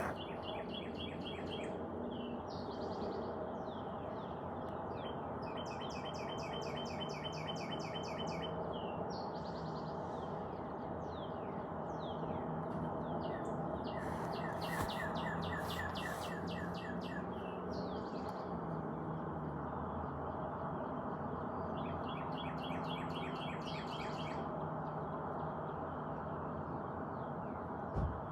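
Several songbirds singing: rapid high trills lasting a second or two, repeated every few seconds, with scattered short chirps, over a steady background hiss.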